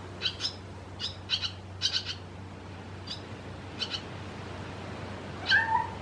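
Barn swallow fledglings giving short, sharp chirps in quick pairs and triplets, then one louder, lower, slurred call near the end.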